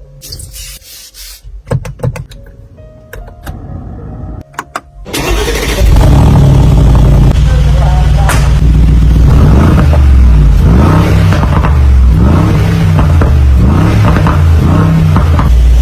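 Brabus 800's twin-turbo V8 starting up about five seconds in after a few clicks and short tones, then running loud with the revs rising and falling repeatedly.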